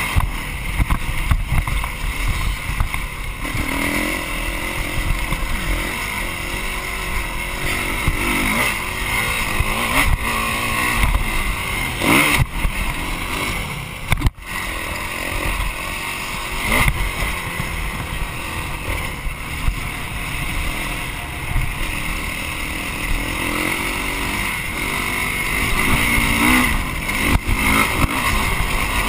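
Motocross bike engine revving up and down through a lap of a dirt track, close to the handlebar-mounted microphone, its pitch rising and falling again and again with the throttle.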